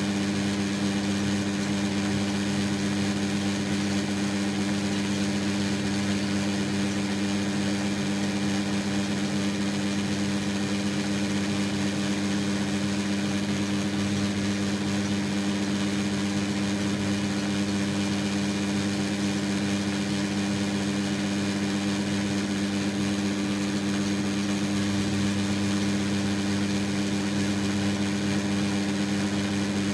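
Metal lathe running steadily with a boring bar in the bore of the spinning brass fitting, boring out the hole: a steady machine hum that does not change.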